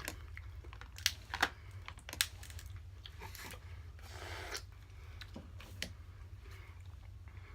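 Scattered sharp clicks and crackles of hard king crab leg shells being cracked and picked apart by hand, over a low steady hum.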